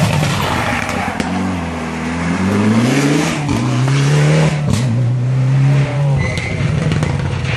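Rally car engine revving hard under acceleration, its pitch climbing, dipping briefly about three and a half seconds in, then held high until it cuts off about six seconds in. A few sharp cracks sound over it.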